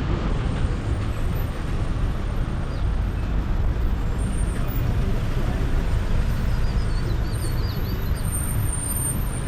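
Steady rumble of street traffic, vehicles' engines running on a busy road, heaviest in the low end.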